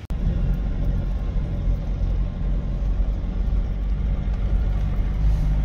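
A 4x4's engine and tyres running steadily on a dirt track, heard from inside the cabin as a low rumble.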